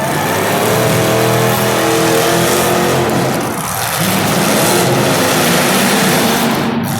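Demolition derby car engines revving hard, several running at once, with a brief dip about three and a half seconds in.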